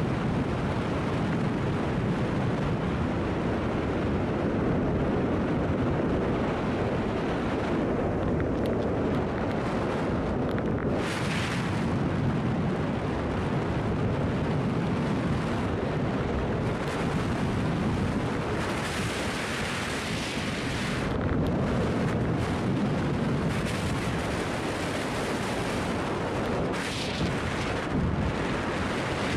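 Wind rushing and buffeting over the microphone of a tandem skydiver's camera, a steady rushing roar with brief hissier gusts a few times.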